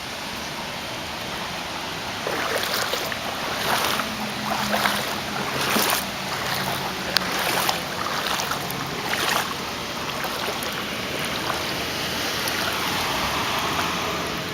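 Legs wading through knee-deep floodwater on a street, each stride a sloshing splash, roughly one a second, over a steady wash of water; the splashes ease off for the last few seconds.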